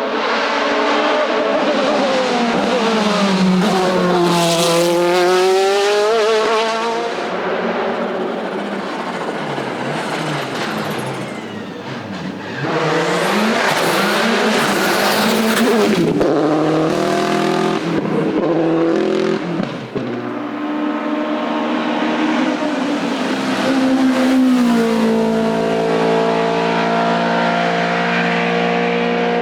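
Hillclimb race car engines at full throttle, the engine note climbing and dropping again and again through gear changes as the cars drive up the course, with a quieter stretch in the middle.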